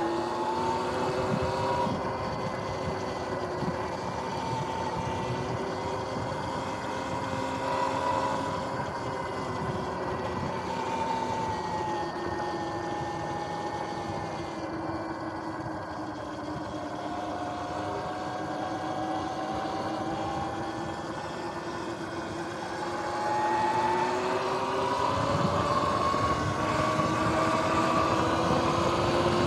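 Sur-Ron X electric dirt bike's motor and drivetrain whining while riding, the pitch sliding up and down with speed over tyre and wind noise. About three-quarters of the way through it accelerates, the whine climbing and getting louder.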